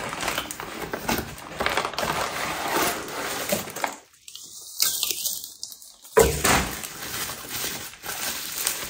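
Plastic packaging and bubble wrap crinkling and rustling as a parcel is unwrapped by hand, with one sharper knock about six seconds in.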